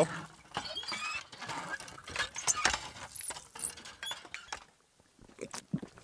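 Irregular light clicks and clinks with soft rustling: a water bottle being handled.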